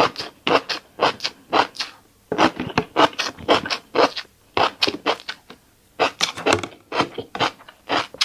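Close-up crunchy chewing of a mouthful of tiny seeds: a steady run of short crunches, about two to three a second, broken by brief pauses about two and six seconds in.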